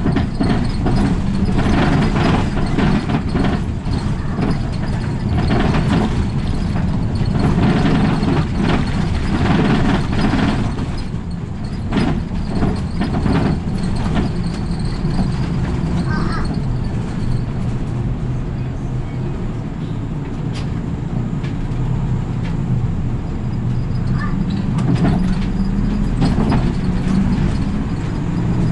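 Route bus heard from inside the cabin at the front, its engine running steadily under road and tyre noise. Frequent knocks and rattles from the cabin come in roughly the first ten seconds, and the ride runs smoother after that.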